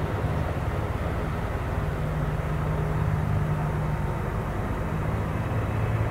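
Boeing 767's jet engines running, a steady low rumble with a hum underneath.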